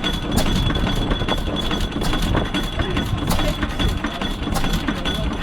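Fairbanks Morse Z series 6 hp stationary engine running: a steady low mechanical clatter broken by sharp knocks at uneven intervals.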